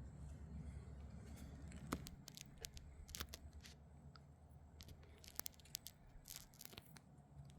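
Faint handling noise: light, irregular clicks and taps over a low steady hum, a few of them sharper than the rest.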